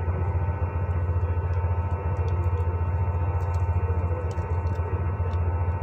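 A steady low hum runs throughout, with faint light crinkles and ticks of origami paper being folded and pressed by hand.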